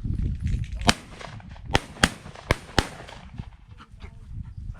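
Shotgun shots at an incoming dove: five sharp bangs in about two seconds, starting about a second in, the first the loudest. Their uneven spacing and loudness fit more than one gun firing.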